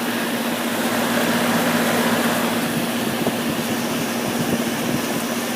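Bryant central air conditioner's outdoor condensing unit running: the steady rush of air from its GE condenser fan over a constant low hum from its Bristol compressor.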